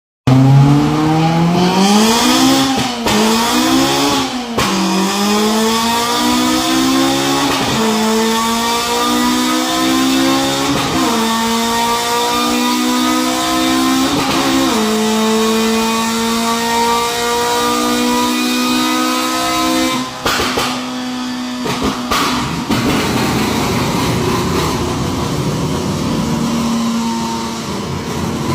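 Honda Civic RS Turbo engine revving up and down, then pulling hard through several gears, its pitch climbing steadily and dropping sharply at each upshift, about four shifts in all. After about twenty seconds the engine note gives way to a steady rushing noise.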